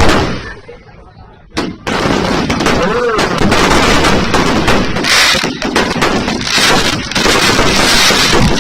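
Fireworks and firecrackers going off in rapid, overlapping bangs and crackles. A brief lull after the first bang ends with a sharp crack, and then the barrage runs on densely.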